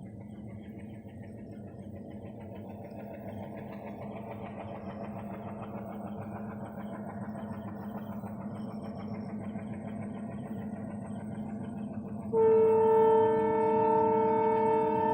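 Indian local train approaching, its rumble slowly growing louder, then the train's horn sounding one long, loud blast starting about twelve seconds in.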